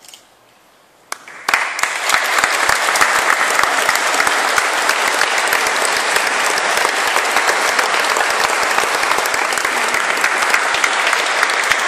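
Audience applause. After a brief quiet, one clap comes about a second in, then the whole audience breaks into dense, steady clapping about a second and a half in.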